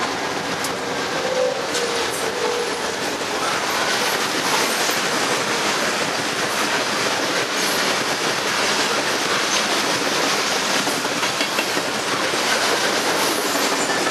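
Freight train rolling past, a steady noise of steel wheels on the rails that grows a little louder after a few seconds.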